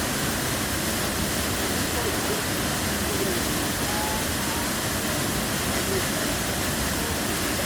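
Steady rushing of a waterfall, an even wash of falling water with no change in level.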